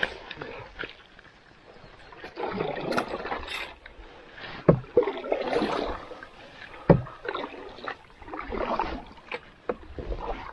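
Double-bladed carbon paddle stroking water beside an Old Town Pack Canoe: three swishes of the blade through the water, about three seconds apart, with a few sharp knocks in between.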